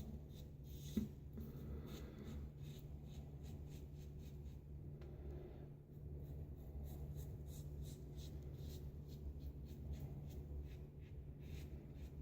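Safety razor (Karve Christopher Bradley, plate A, Feather blade) scraping through two days of stubble on a lathered face in short repeated strokes on a cross-grain pass, faint, over a low steady hum, with one sharper tap about a second in.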